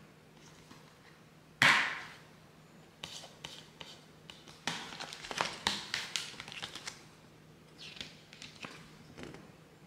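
A plastic Blu-ray keep case snapped open with one loud click, followed by a run of small plastic clicks and taps as the case and disc are handled, then a softer rustle of a paper booklet being taken out near the end.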